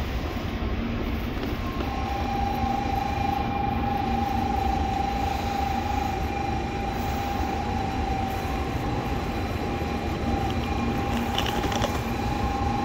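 Shinkansen bullet trains at a station platform: a steady rumble and hum, with a steady whine coming in about two seconds in.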